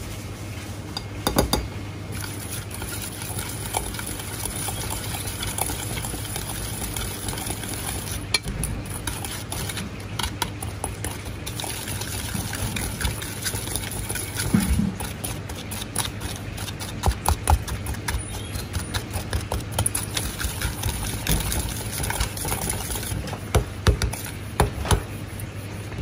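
Dry seasoning powder and salt being stirred and scraped around a stainless steel bowl, with many light clicks and taps against the metal, denser in the second half, over a steady low hum.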